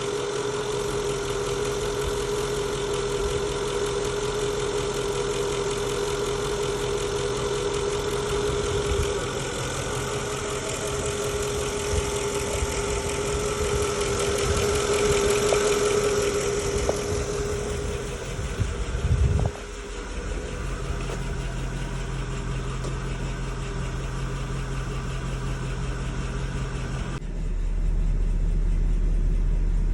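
Mercedes-Benz M113.980 V8 of a W210 E55 AMG idling, with a ticking that the owner takes for lifter noise. About 27 seconds in the sound turns suddenly duller and deeper.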